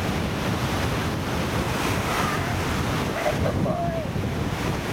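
Ocean surf breaking on a beach, with wind buffeting the microphone: a steady, even rush of noise.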